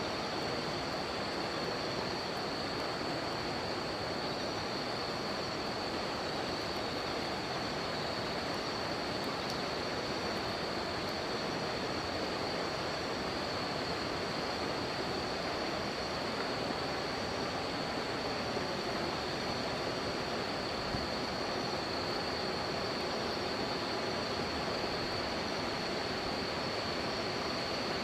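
River water rushing steadily, with insects chirping in a continuous high-pitched trill over it.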